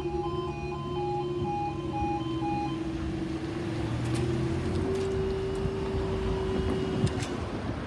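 Level crossing audible warning sounding its pulsing two-tone alarm, which stops about a third of the way in as the barriers rise. A steady hum carries on under it, steps up slightly in pitch, then cuts off near the end with a sharp clunk.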